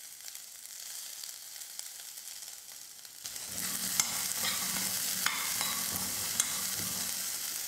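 Black chickpeas sizzle faintly in a little hot oil in a kadai. About three seconds in, a spatula starts stirring them, scraping across the pan with scattered clicks as the chickpeas knock together.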